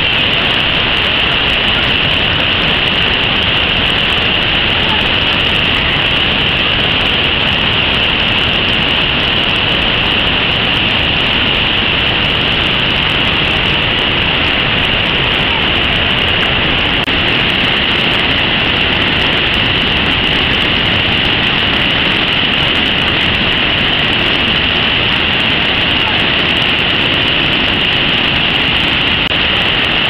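Steady loud rushing of a large mountain river's white-water rapids below a bridge, an unbroken roar with a hissy edge.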